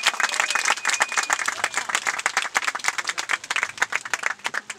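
Wedding guests clapping and applauding, the dense clapping thinning out near the end.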